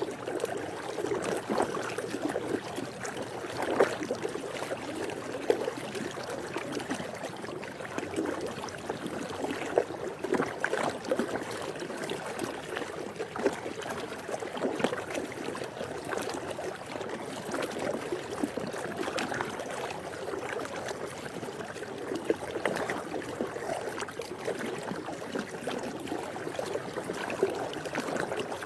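Swimming-pool water: a continuous trickling and splashing with many small irregular splashes, steady throughout.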